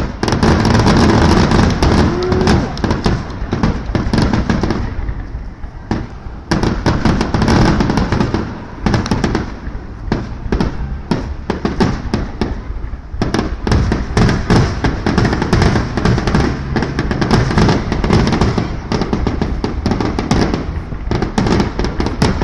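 Aerial fireworks going off in rapid succession: a near-continuous barrage of bangs and crackling from many shells bursting. It slackens briefly about five seconds in and again around ten seconds in.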